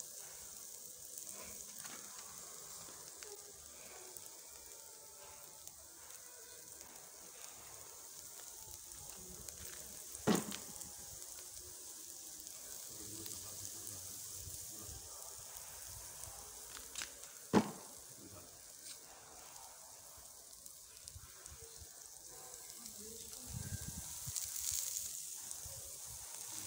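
Skewers of meat and vegetables sizzling on a grill: a steady high hiss, broken by two sharp pops, about ten seconds in and again about seven seconds later.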